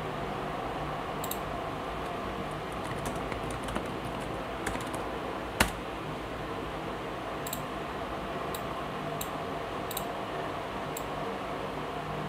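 Scattered clicks of a computer mouse and keyboard, roughly one a second with a quick flurry a few seconds in and one louder click about halfway, over a steady hum.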